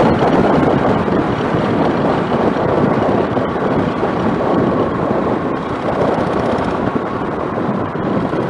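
Steady wind rush buffeting the microphone of a moving motorcycle, with road and engine noise underneath and a faint steady whine.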